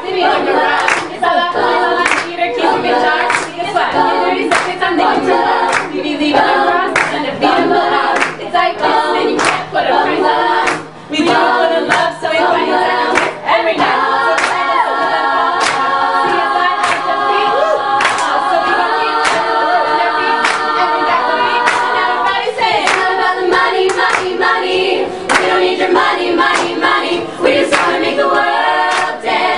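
An a cappella vocal group singing in harmony over a steady clapped beat of about two claps a second. The voices hold longer chords for several seconds midway.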